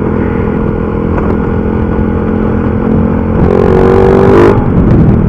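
Motorcycle engine running through an aftermarket Rapido chicken pipe exhaust with a modified tip, giving a loud, open exhaust note. The engine note climbs slightly a few seconds in, then eases near the end.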